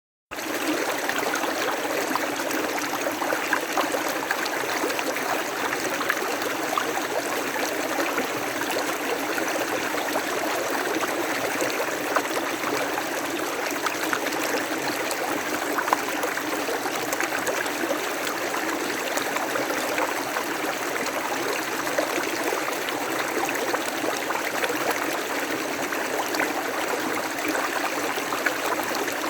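River water flowing over stones in a steady, even rush, with small splashes and gurgles through it.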